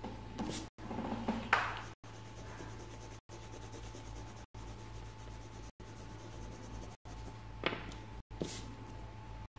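Pen strokes on paper while a drawing is coloured in: a run of strokes in the first two seconds, then two sharper ones about eight seconds in, over a steady low electrical hum.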